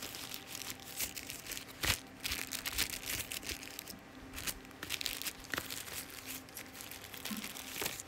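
Plastic packaging crinkling and rustling as it is handled, with scattered small clicks and taps.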